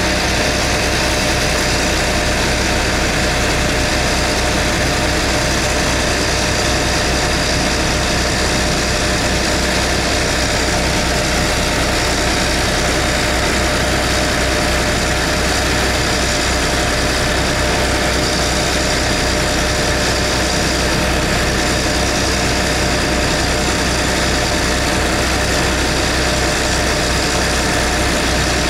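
Heavy diesel engine running at steady revs, a constant hum with steady tones that neither rise nor fall.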